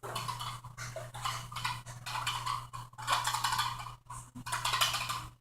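Hard plastic clattering and clicking throughout: Nerf darts and a Nerf blaster being handled during a reload.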